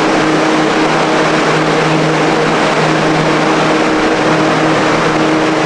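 Dehumidifiers and fans running together to dry out water damage from a burst pipe: a loud, steady whirring rush over a steady low hum.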